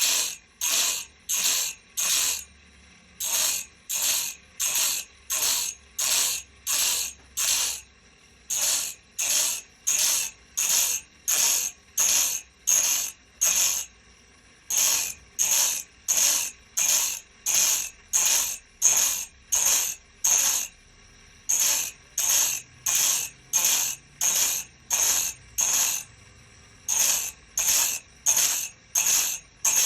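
A machine working on a sawmill cutting blade, making short, even strokes about twice a second, with a brief pause every six seconds or so.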